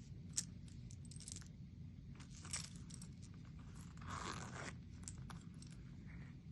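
Faint handling of a small leather coin pouch: scattered light clicks and taps of its metal keychain and rivet hardware, with a brief scraping rustle about four seconds in.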